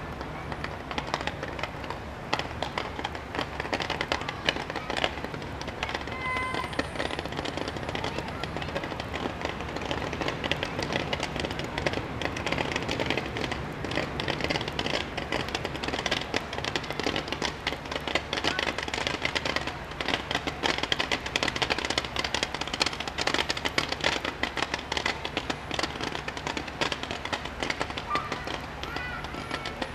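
Fireworks display firing continuously: a dense, rapid crackle of many small pops and bangs as fans of comets and stars are launched.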